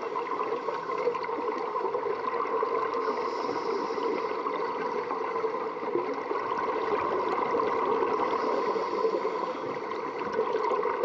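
Steady muffled noise of a swimming pool heard under water: a constant hiss with an even hum beneath it, and no distinct events.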